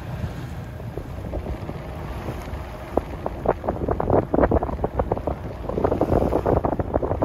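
Wind buffeting the microphone aboard a sailing yacht under way, over a steady low rumble. From about three seconds in, a run of irregular sharp slaps and crackles joins it.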